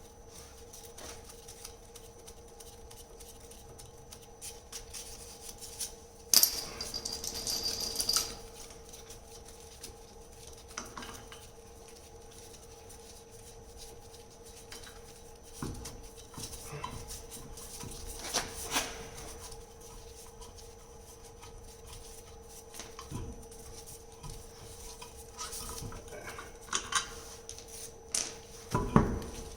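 Hand ratchet and socket working car lug nuts loose: scattered metal clicks and knocks, with a longer burst of rattling metal noise about six seconds in. A steady hum runs underneath.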